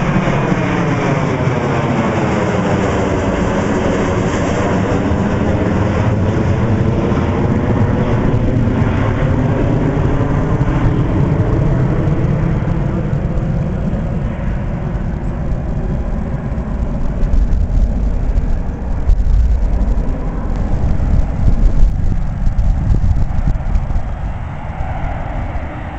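Boeing jetliner turbofan engines at takeoff power: a whine falling in pitch over the first few seconds as a climbing jet passes overhead, then a steady rumble that grows heavier, with uneven peaks, in the second half.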